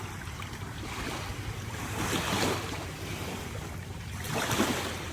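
Water washing at the shoreline with wind on the microphone, with two louder washes, about two seconds in and again near the end.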